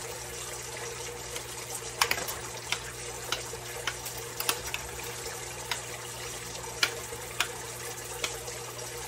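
A spoon stirring thick, saucy macaroni and cheese in a baking dish: wet squishing, with scattered sharp clicks of the spoon against the dish.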